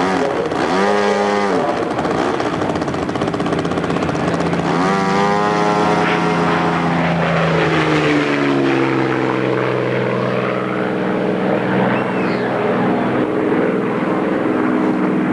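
Single-engine piston fighter in Bf 109 style taking off at full power and passing close by. Its propeller and engine drone drop in pitch as it goes past, about eight seconds in, then hold a steady drone as it climbs away.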